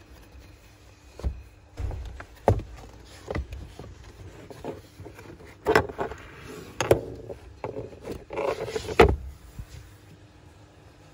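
Third-row seat in the boot of a 2018 Peugeot 5008 being folded and raised by hand: a series of knocks and clicks with scuffing between them, the loudest knock about nine seconds in.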